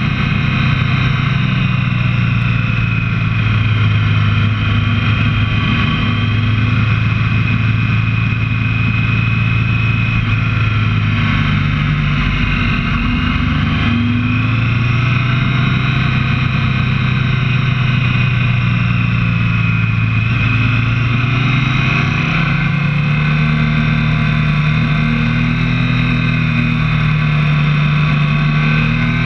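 Motorcycle engine running at road speed, its pitch rising and falling gently with the throttle through the bends.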